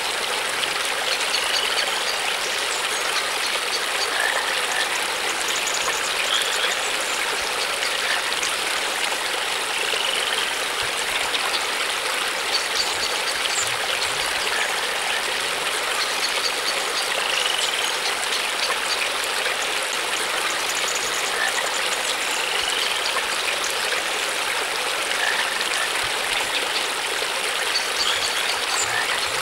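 Steady rush of flowing water, like a stream, with a few faint short chirps every few seconds.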